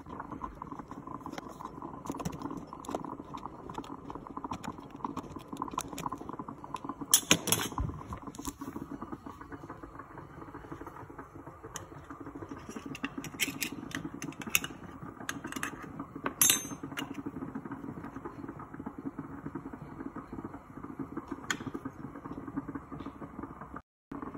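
Clicks, taps and clatter of kitchen utensils on a plastic chopping board, including a hand-held can opener cutting round a tin of mushrooms, over a steady low hum. The loudest clatters come about seven seconds in and again about sixteen seconds in.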